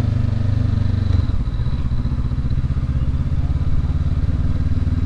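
Honda CB500X's 471 cc parallel-twin engine running at low street speed, its note shifting about a second in.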